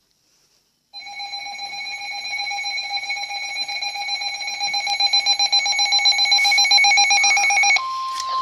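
Emergency alert tones. About a second in, an electronic alarm of several high tones starts, pulsing rapidly and growing steadily louder. Near the end it switches to a single steady tone, the 1050 Hz attention tone that comes before a National Weather Service warning.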